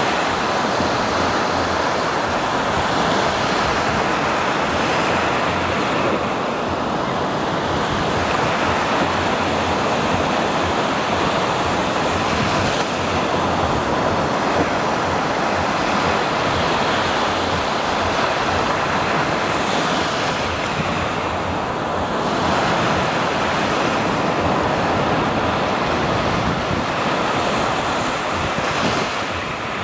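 Small Baltic Sea waves breaking and washing onto the beach in a steady, continuous rush, with wind buffeting the microphone.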